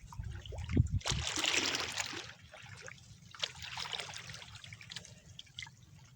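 Water splashing and trickling in two spells, one about a second in and another near the middle, with a few small knocks.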